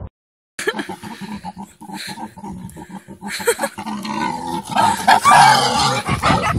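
A large pig grunting as it carries a rider, the grunts growing louder over the last couple of seconds as it breaks into a run.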